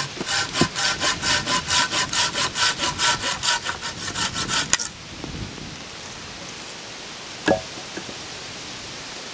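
Hand saw cutting through a peeled log with quick, even back-and-forth strokes that stop about five seconds in. A single knock follows a couple of seconds later.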